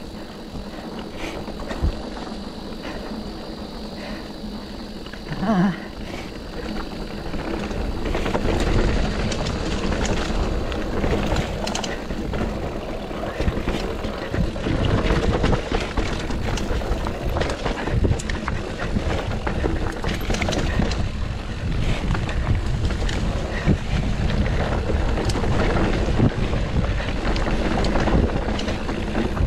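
A GT Sanction enduro mountain bike riding down a rough dirt and rock trail, heard from a chest-mounted action camera: steady tyre and rolling noise, with frequent knocks and rattles from the bike over bumps. It gets louder and busier about eight seconds in as the descent picks up.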